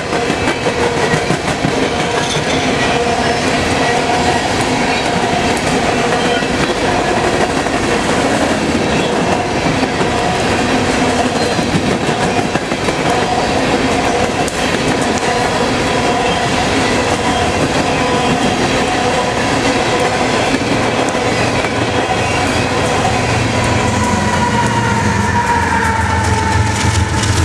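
A string of empty coal hopper cars rolling past at speed, the wheels on the rails making a steady rumble with several held ringing tones over it. Near the end, a GE ES44AC diesel locomotive pushing at the rear of the train comes by, adding a low engine drone and a falling tone.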